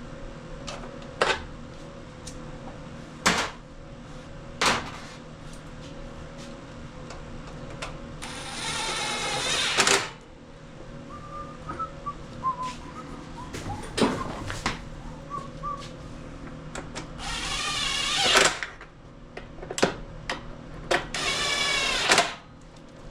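Work noises of reassembling a riding-mower engine: scattered sharp clicks and knocks of tools and metal parts, and three longer rasping mechanical passes of one to two seconds each.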